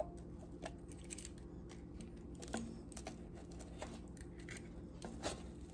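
Metal kitchen tongs clicking lightly against an air fryer basket and cinnamon rolls while stuck-together rolls are pulled apart: a few faint, scattered clicks.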